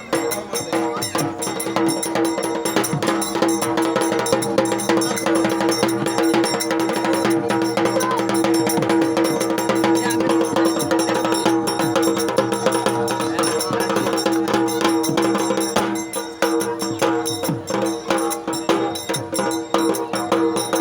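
Music with busy, fast percussion (drums, jingles and clicks) over a steady held tone.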